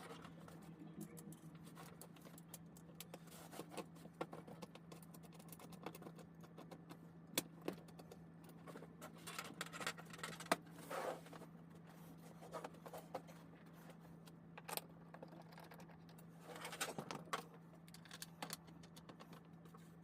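Faint scattered clicks and short metallic rattles of hand tools and seat hardware being handled, over a steady low hum.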